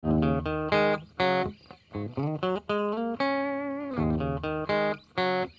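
Intro music led by a guitar, playing short melodic phrases with bent notes and a held note with vibrato about three seconds in.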